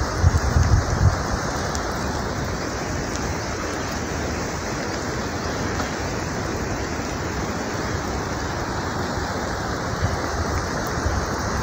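Wet-snow avalanche debris sliding down a gully, a steady loud rushing hiss of tumbling snow chunks. Low buffets from wind on the microphone come in the first second.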